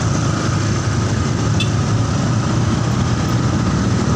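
Large bus diesel engine running steadily close by, a low-pitched engine sound with traffic noise around it.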